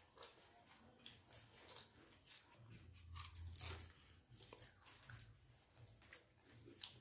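Faint crunching and chewing of pani puri: crisp fried puri shells being bitten and chewed, a string of small crackles and clicks that is loudest about three to four seconds in.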